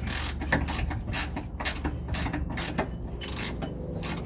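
Ratchet wrench clicking in quick, uneven strokes while working a 17 mm rear shock absorber mounting bolt.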